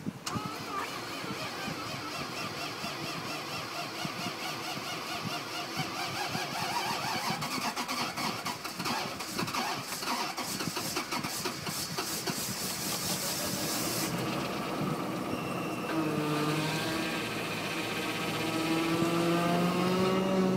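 Lexus GX470's 4.7-litre V8 cranking at length in deep cold (−37 °C), then catching about two-thirds of the way through and running up to a fast cold idle with a rising pitch.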